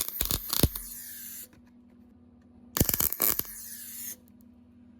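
Wire-feed (MIG) welder tacking a thin sheet-steel patch panel: two short bursts of crackling arc, one at the start and one about three seconds in.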